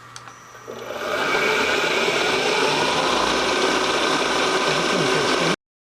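A 3/8 end mill on a milling machine cutting into a metal part, taking a 20-thousandths pass: a loud rattling cut that builds up about a second in, holds steady, then stops abruptly near the end.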